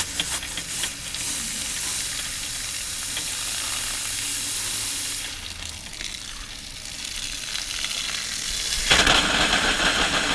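Compressed air hissing from a rubber-tipped blowgun held in a hot water pressure washer's water inlet, blowing the water out of the pump and heating coil so it cannot freeze. The hiss eases after about five seconds, then a louder, lower rushing sound starts suddenly about nine seconds in.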